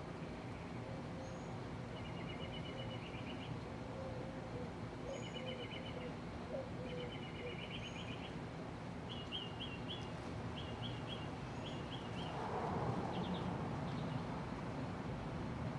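Small birds chirping in short repeated trills over a steady background hum, with a faint whooshing swell about twelve seconds in.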